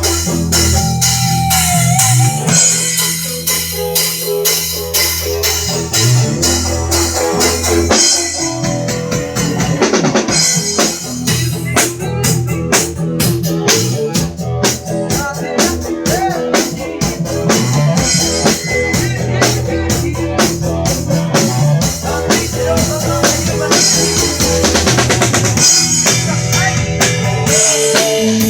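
Live band jamming: a drum kit plays a steady beat with guitar.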